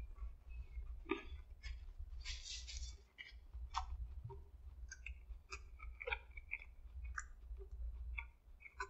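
A person chewing a mouthful of burger close to the microphone: irregular small wet clicks and crunches, spread unevenly through the chewing, over a faint steady low hum.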